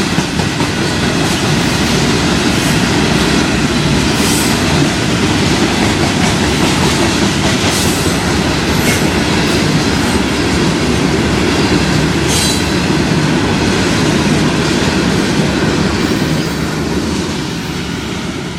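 CSX freight train cars rolling past on the rails, a steady rumble and clatter of wheels with brief high wheel squeals several times. The sound fades toward the end.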